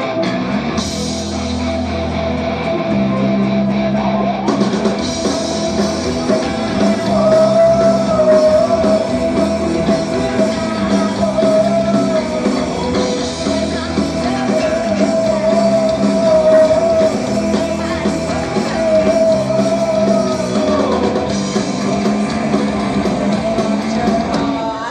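Live rock band playing loud through a PA: distorted electric guitars, bass and a drum kit, with a woman singing over them. The sound fills out about four seconds in.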